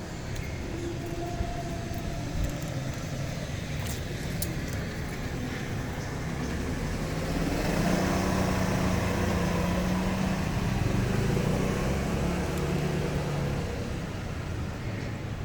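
A motor vehicle's engine and road noise, swelling for several seconds in the middle and then easing off, as a vehicle passes close by.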